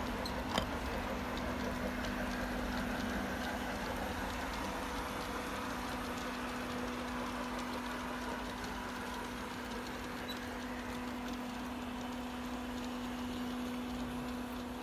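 Sound module of a Piko G-scale model diesel locomotive playing a steady diesel engine hum at an even pitch. There is a single click about half a second in.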